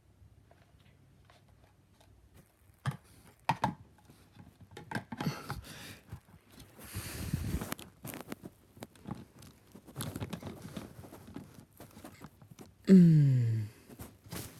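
Plastic KerPlunk game parts being handled and fitted together: scattered clicks and knocks with rustling in between, then near the end a short, loud sound falling in pitch.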